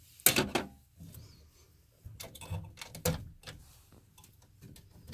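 Electrical wires being handled and pushed into a metal breaker panel: scattered sharp clicks and short scrapes of wire and metal, the loudest just after the start and another about three seconds in.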